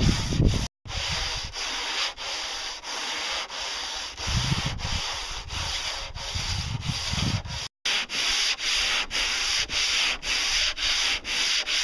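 Sandpaper rubbed by hand along the wooden hull of a small pontoon, in quick back-and-forth strokes about two a second. The sound drops out briefly twice.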